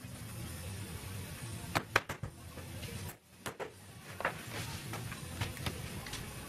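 Sharp wooden knocks and clicks as a glued timber door frame is handled, laid flat on the workbench and bar clamps are fitted across it, the loudest knocks coming about two seconds in. A steady low hum runs underneath.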